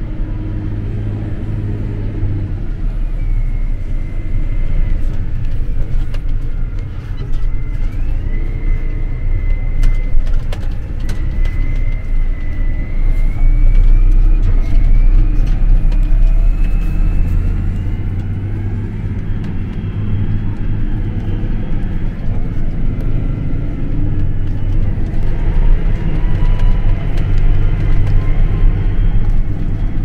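John Deere 8R tractor running steadily under load, heard from inside the cab, with a deep engine drone and a thin high whine that climbs slowly in pitch over the first twenty seconds or so.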